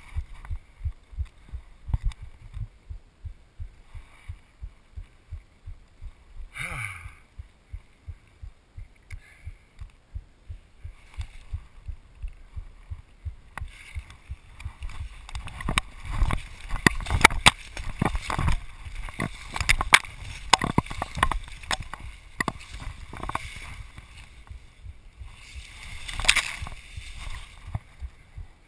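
Footsteps and rustling in brush and dry leaf litter: soft, even thuds at first, then from about halfway a dense run of louder sharp cracks and crunches as the movement picks up.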